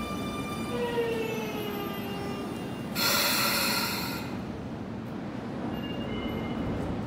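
Sotetsu 8000 series train braking into a station: the Hitachi IGBT VVVF inverter and traction motors whine in several tones that fall in pitch as the train slows. About three seconds in, a loud hiss of compressed air lasts about a second as the train comes to a halt, then only a low rumble remains.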